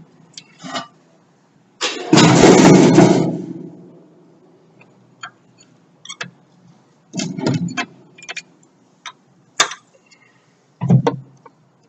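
Power tool, likely an impact wrench, running hard for about a second and a half as it drives the radiator's lower mounting bolts, then winding down. Scattered metal clicks and knocks follow.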